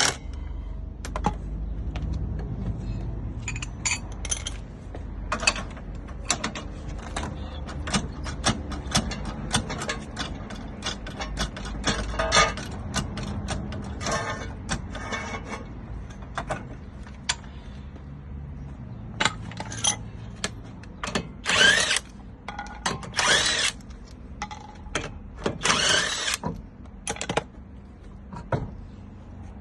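Hand tools working on a car, with irregular metallic clicks, knocks and clatter over a low steady rumble, and a few longer rasping runs near the end.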